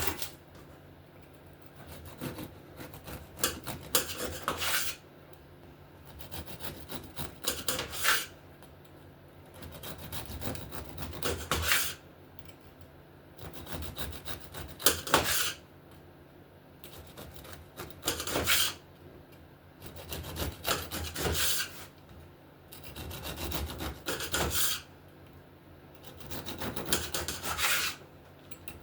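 A knife sawing back and forth through baked biscotti logs, slice after slice: about eight cuts, each lasting a couple of seconds and growing louder as the blade goes through.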